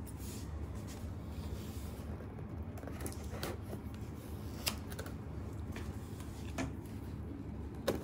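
A few short, sharp clicks and taps from hands handling a cardboard box and picking up a pair of scissors, over a steady low hum.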